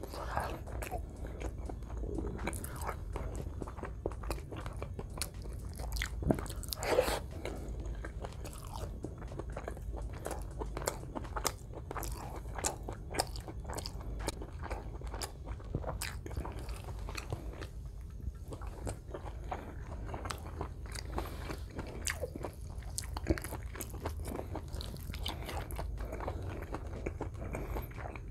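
Close-miked eating sounds of a person chewing and biting mouthfuls of rice and meat, with crunches and a steady run of small wet mouth clicks.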